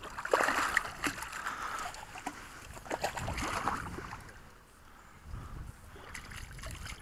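A hooked trout splashing and thrashing at the water's surface in the shallows as it is brought in to the bank, in two bursts: one just after the start and another about three seconds in.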